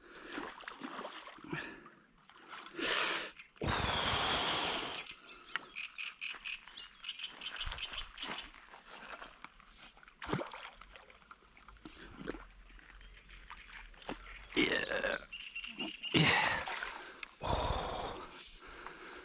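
Lakeside wildlife: frogs croaking and birds chirping in short repeated calls. Two louder spells of rushing noise come about four seconds in and near the end.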